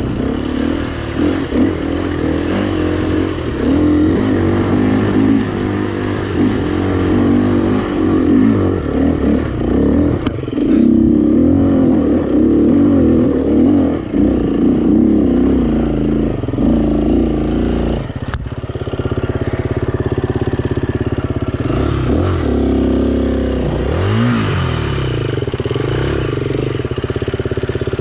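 Dirt bike engine under way, its revs rising and falling with the throttle. About 18 seconds in it settles to a steadier, lower running with one quick rev a few seconds later.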